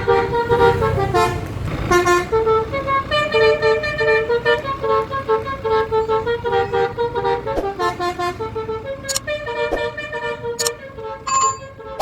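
Bus basuri multi-tone 'telolet' horn playing a tune, a quick run of changing notes, over a low engine rumble in the first couple of seconds. A few sharp clicks come near the end.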